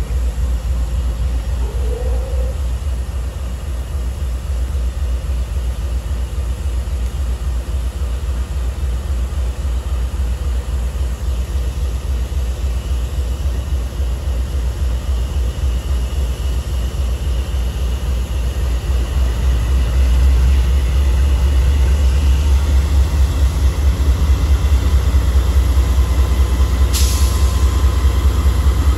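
The diesel engines of CSX's GE C40-9W locomotive 9041 and a trailing SD70AC working as they pull an autorack train: a deep, pulsing rumble that grows louder about twenty seconds in as the lead unit draws near. A brief sharp noise sounds near the end.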